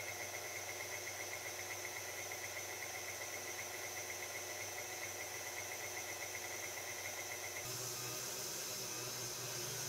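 KitchenAid Artisan stand mixer running, its wire whisk beating egg whites into meringue in a glass bowl. It gives a steady motor hum and whirr that changes abruptly about eight seconds in.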